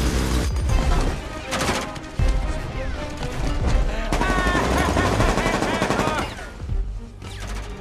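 Film action soundtrack: bursts of automatic gunfire over a heavy low rumble, mixed with the musical score.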